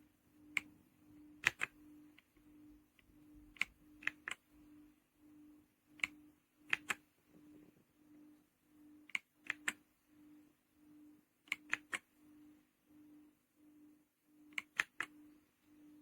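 Mechanical keyboard keys clacking in short groups of two or three every few seconds, over a faint low hum that pulses about once or twice a second.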